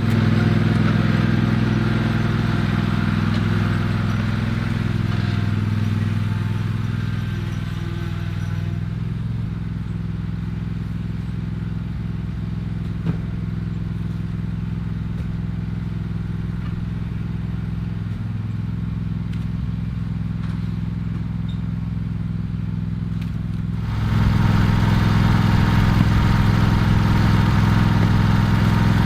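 An engine runs steadily at an even, low speed. After about eight seconds it turns duller and quieter, and near the end it comes back loud and full.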